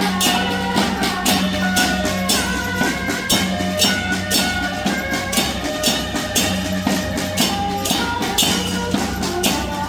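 Loud procession music with a steady drum beat and bright, cymbal-like hits about twice a second over a held bass and melody.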